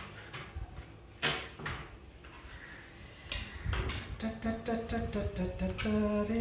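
Kitchen knife chopping shallots and garlic on a plastic cutting board: a few separate knocks, then a quick run of chops in the second half. A low pitched tone sounds alongside the chopping from about four seconds in.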